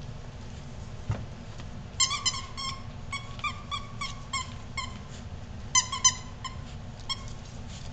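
Five-week-old bullmastiff puppy giving a string of short, high-pitched whimpering yelps, starting about two seconds in and loudest around six seconds in.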